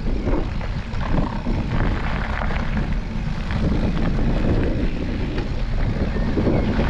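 Wind rushing over the microphone of a moving mountain bike, with knobbly tyres rumbling and crunching over a gravel trail and short rattles from the bike.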